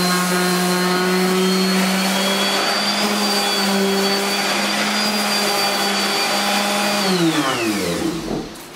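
Electric motor of a handheld power tool running at a steady speed, then switched off about seven seconds in and winding down with a falling pitch.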